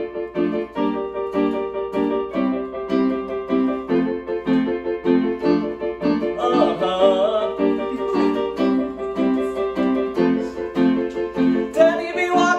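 Casio electronic keyboard in piano voice playing a song intro: the same chords struck over and over, about two a second, at a steady pace. A man's singing voice comes in near the end.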